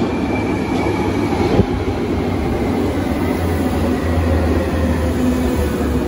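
Berlin U-Bahn large-profile train, a BVG Class H, pulling into the station and rolling along the platform as it slows: a steady low rumble of wheels on rail, with a faint whine that falls gently in pitch over the first couple of seconds.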